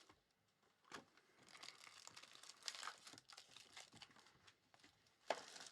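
Faint crinkling and rustling of trading-card packaging being handled and opened, with small clicks and one sharper click about five seconds in.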